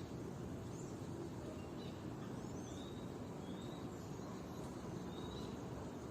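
Several short, thin bird chirps, a few of them gliding up or down, over a steady low background rumble.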